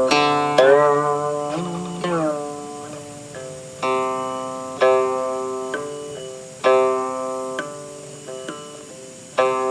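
Guqin being played: plucked notes that ring and die away, several of them slid up and down in pitch in the first two seconds, then new plucked notes about once a second.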